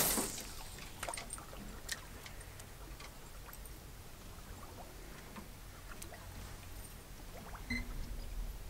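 Water trickling and lapping against an aluminium boat hull over a low steady rumble, with a sharp knock at the start and a few faint clicks after.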